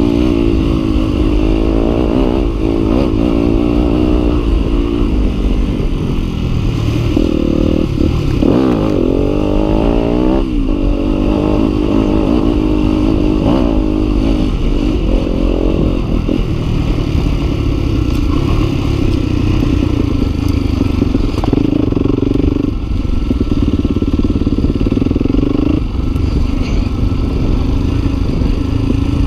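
Yamaha WR250F's single-cylinder four-stroke engine ridden off-road. The revs rise and fall sharply under changing throttle through the first half, then hold steadier in the second half.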